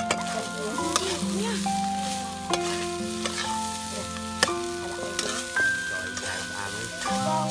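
Metal spoon stirring and scraping rice in a frying pan over an open fire, with sizzling and a few sharp clanks of the spoon against the pan. Background music of held notes runs underneath.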